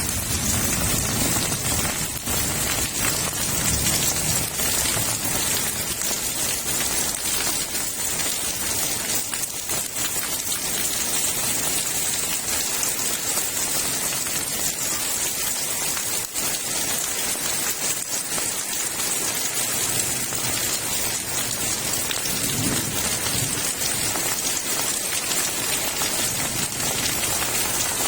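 Heavy rain pouring steadily, with low rumbles of thunder dying away over the first few seconds and another brief rumble about two-thirds of the way through.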